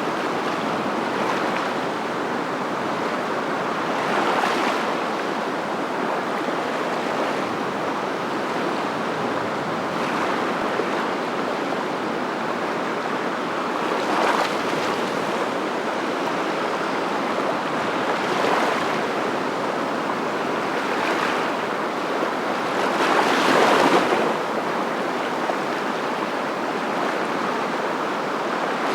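Waves washing in: a steady rushing noise that swells briefly several times, the strongest swell near the end.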